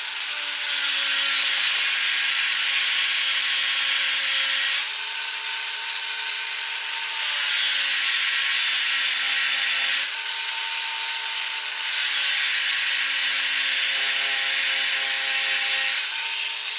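Small electric grinding tool running steadily and grinding down a wooden handguard spacer in three passes, each pass a louder rasp of wood being removed, with the motor running free in between. The wood is ground because the upper handguard fitted too tightly.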